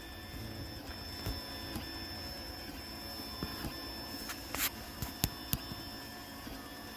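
Single-extruder FDM 3D printer printing a layer of PLA: the stepper motors run with a steady high whine as the hotend moves, and a few sharp clicks come a little past halfway.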